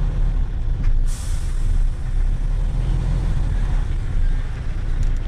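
Heavy truck's diesel engine running, heard from inside the cab, with a sharp hiss of compressed air from the air system about a second in that fades over about a second.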